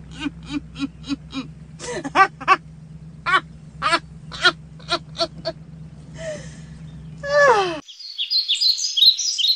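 Women laughing in a run of short, evenly repeated bursts, several a second, over a steady low hum, ending in a long falling squeal. Near the end there is a sudden cut to high chirping sounds.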